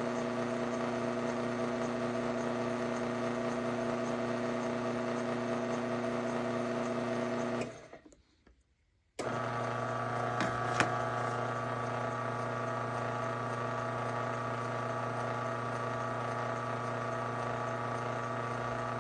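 Craftsman Silent Drive belt-drive garage door opener motor running unloaded with no rail fitted, a steady hum. It stops about eight seconds in and starts again about a second and a half later, running at a lower pitch. Two faint clicks come just after the restart.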